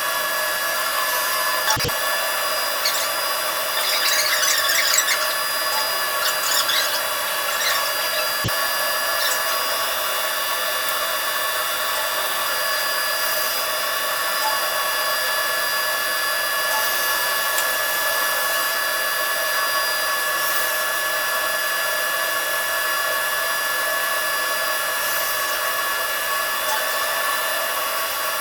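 Steady machine hum made of several held tones, with a few brief squeaks and two sharp clicks in the first nine seconds.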